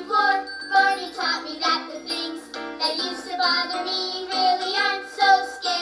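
Children's song: children singing over upbeat backing music.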